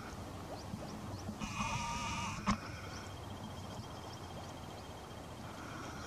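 Ruffed grouse giving one call of about a second, starting about a second and a half in. A single sharp click follows right after it and is the loudest sound.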